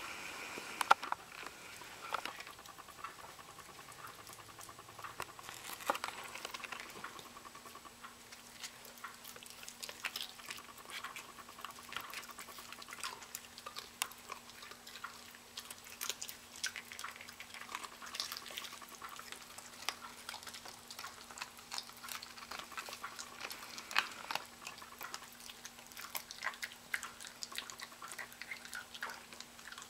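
Miniature pinscher chewing raw chicken, a scatter of short, sharp wet clicks and crunches throughout.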